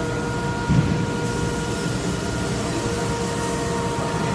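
Steady mechanical hum of background machinery, holding a few constant tones, with one short low thump a little under a second in.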